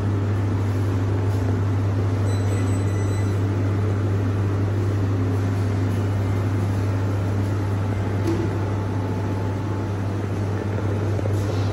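A steady, low mechanical hum from a running machine, with a constant wash of noise over it.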